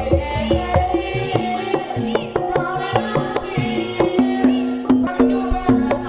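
Javanese gamelan music for a lengger dance: tuned struck keys ringing out repeating notes over a steady beat of kendang hand-drum strokes.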